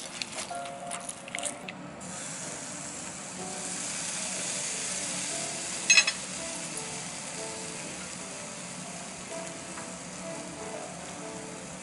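Marinated wagyu sizzling on a wire grill over charcoal: a steady hiss that swells for a few seconds, with one sharp pop about six seconds in. A few crisp clicks and crunches come in the first couple of seconds, and soft background music plays throughout.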